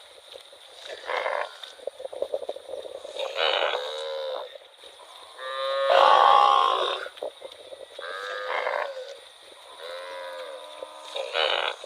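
Cattle mooing in a series of short calls, about six of them, the loudest and longest about six seconds in.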